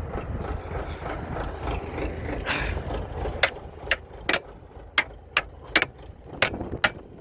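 Tractor engine idling. About halfway through, a run of about eight sharp knocks comes at roughly two a second.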